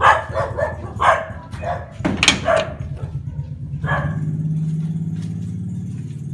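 Dog barking several times in quick succession, with one more bark about four seconds in. A low, steady drone runs underneath and carries the second half.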